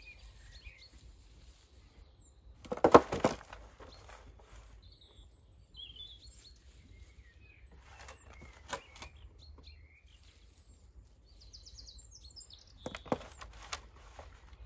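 Small garden birds chirping and singing, with short rustling bursts from gloved hands working soil in around pea seedlings in a raised bed, the loudest about three seconds in and another near the end.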